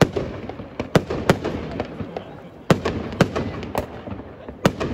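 Aerial firework shells bursting: about seven sharp bangs at uneven intervals, with crackling between them.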